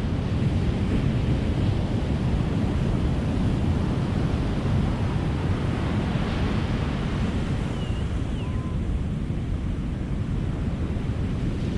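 Ocean surf: a steady rush of waves washing on a beach, swelling slightly midway, with a faint brief high call around two-thirds of the way through.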